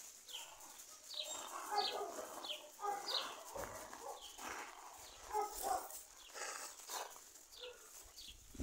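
Dogs playing, giving short, high, falling yips and whines at irregular intervals.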